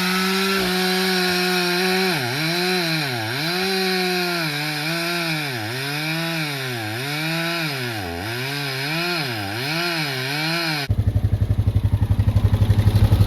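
Chainsaw running at high revs, then cutting wood, its pitch dipping and recovering about once a second as the chain loads down. About eleven seconds in it gives way to a Honda four-wheeler's engine idling with a fast, even pulse.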